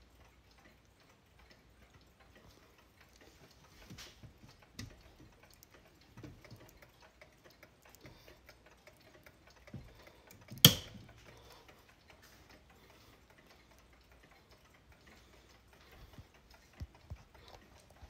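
Several wooden pendulum wall and shelf clocks ticking quietly out of step with each other. About halfway through there is one sharp, much louder knock.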